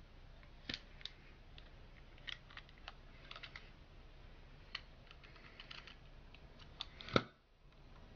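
Scattered light clicks and taps of steel parts and a cutting tool at a T-90 transmission cluster gear, as the needle bearings are pushed in and the rubber bands holding them are cut. The sharpest click comes near the end.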